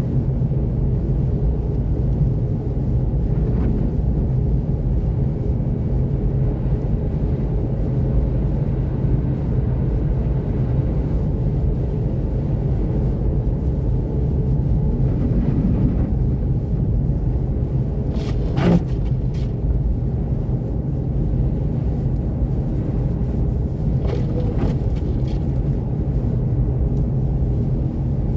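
Seat Mii electric cruising on a snow-covered highway: a steady low rumble of tyres and road, with no engine note. A few short clicks or knocks come about two-thirds of the way through.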